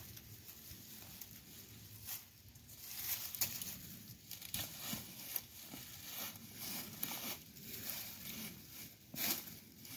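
Dry fallen leaves crunching and rustling underfoot and around brush being worked at ground level, with scattered sharp crackles; the battery chainsaw's motor is not running.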